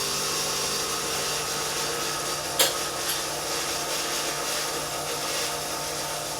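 Coffee vending machine dispensing water: its newly fitted FLUID-O-TECH pump runs with a steady hum and water hisses into the glass, with a single click about two and a half seconds in. The pump delivering water is the sign the no-liquid fault is cured.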